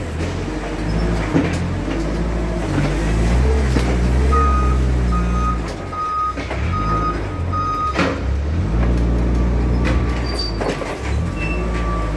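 Forklift running and manoeuvring, its motor rising and falling in pitch as it drives, with a string of reversing beeps about two a second in the middle, then a sharp knock.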